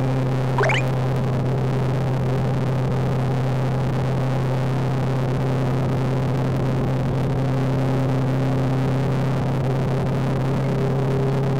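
Suzuki V-Strom 250's parallel-twin engine running at a steady cruising speed, with wind and road noise. A brief rising chirp comes about half a second in.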